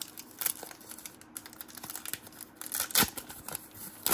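Trading cards and a pack wrapper being handled: crinkling paper and a run of light clicks and taps as the cards are flipped through. The sharpest taps come about three seconds in and again at the end.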